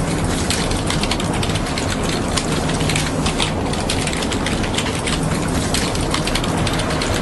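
Rapid, irregular clicking of laptop keyboards being typed on, over a steady low hum.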